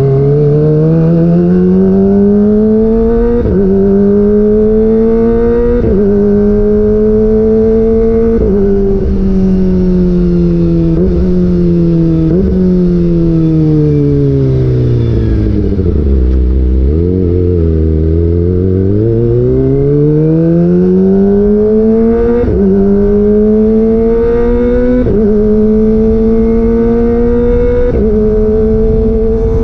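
Kawasaki ZX25R's 250 cc inline-four through a DX Generation GPR aftermarket exhaust with the dB killer out, accelerating hard with three quickshifter upshifts in quick succession. The revs then fall steadily to a low point about halfway, and the bike pulls away again with three more upshifts near the end.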